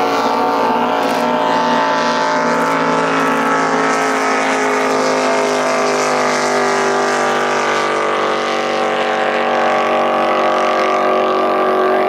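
Inboard race boat engine running at racing speed across the water, a loud steady drone that rises and falls slightly in pitch.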